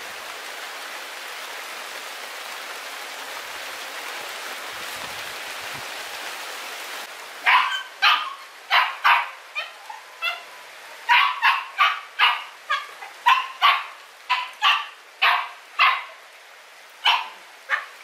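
A puppy barking in short, sharp, high yaps, one to two a second, starting about seven seconds in. Before that there is only a steady, even hiss.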